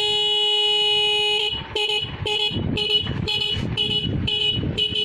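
Motorcycle horn held in one long steady blast for about a second and a half, then tapped in quick short toots, about two or three a second.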